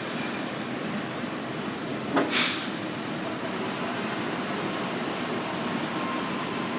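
Fukui Railway tram running as it pulls away, with a short, sharp two-part hiss about two seconds in.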